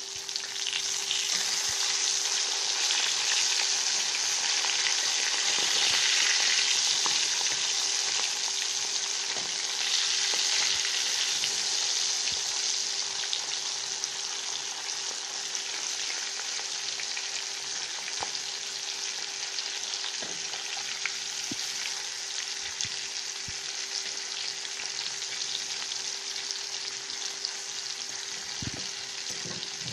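Mackerel frying in very hot oil in a pan: a dense, steady sizzle that is loudest in the first dozen seconds and then eases slightly as the fish browns.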